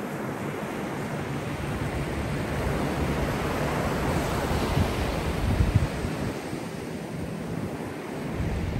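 Small waves breaking and washing up a sandy beach, the surf swelling and easing. Wind gusts on the microphone about halfway through.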